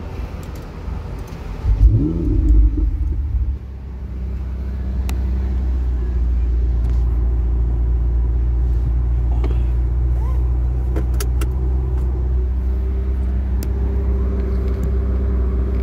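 Ferrari 488 Spider's twin-turbo V8 being started: about two seconds in it catches with a loud, sharply rising rev flare. It drops back after about a second and a half, then settles into a steady low running note.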